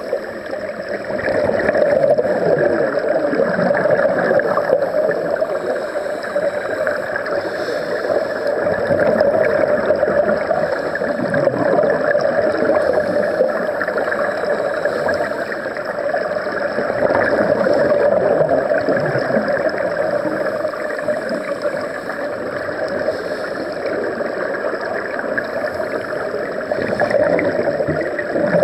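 Underwater sound heard by a submerged camera: scuba divers' exhaled bubbles gurgling and bubbling over a steady hum, the level swelling and easing every several seconds.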